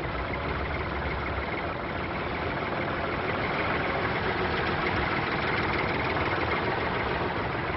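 Engine of a small airfield recovery tractor running steadily at low revs while it tows an aircraft.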